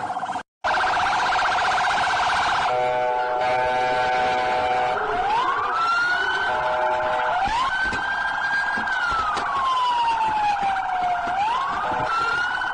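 Police car electronic siren that cuts out briefly about half a second in, then runs a fast warbling yelp, a couple of seconds of steady horn-like tones, and slow rising and falling wail sweeps.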